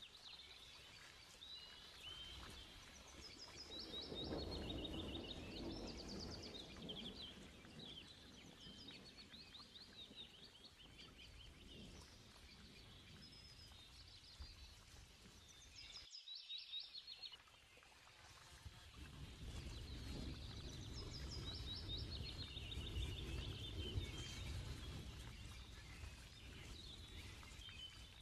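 Birds chirping in quick, repeated trills over a low background rumble that swells and fades, briefly dropping away about two-thirds of the way through.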